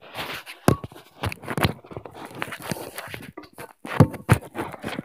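Irregular handling knocks, scrapes and footsteps on a wooden floor, with a few louder sharp knocks close together about four seconds in.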